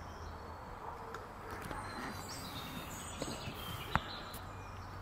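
Faint birdsong, short high chirps over a steady low background rumble, with one sharp click about four seconds in.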